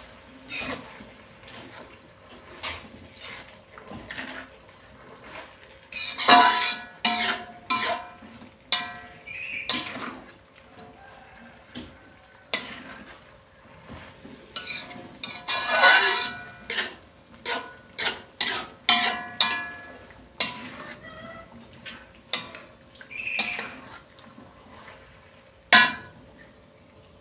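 A metal spatula scraping and knocking against a wok while stir-frying cabbage and tofu. The clanks come irregularly, with two busy spells of ringing metal, about a quarter and three-fifths of the way through, and one sharp knock near the end.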